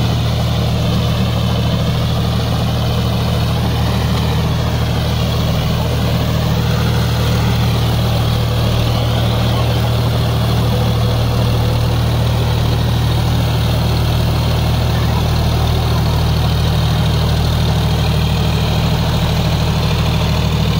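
John Deere 5050D tractor's three-cylinder diesel engine running steadily at constant speed while it drives a rotavator through wet mud.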